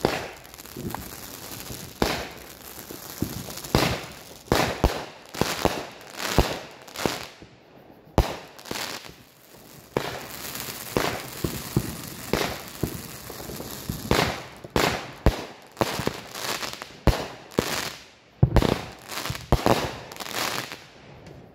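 Aerial fireworks going off: a string of sharp bangs, irregularly spaced at roughly one or two a second, with crackling in between. There is a short lull about eight seconds in before the bangs pick up again.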